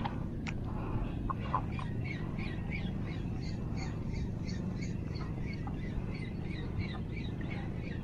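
Steady low outdoor rush of wind and water at the shoreline. From about two seconds in, a faint, evenly repeated series of short chirping notes comes at about three a second, like a bird calling.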